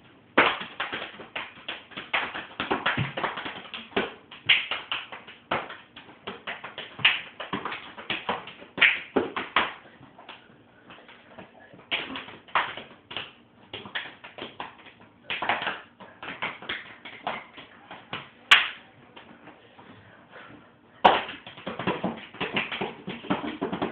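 Rapid hand pats and slaps on a body and clothing, in quick irregular flurries broken by two short pauses, about ten and nineteen seconds in.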